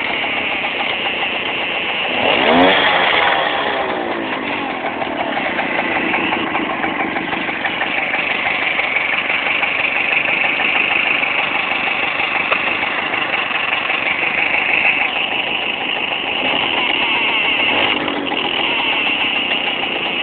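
Romet Kadet moped's 50 cc Dezamet two-stroke engine running while its original electric horn buzzes on and off. The engine is revved briefly about two and a half seconds in.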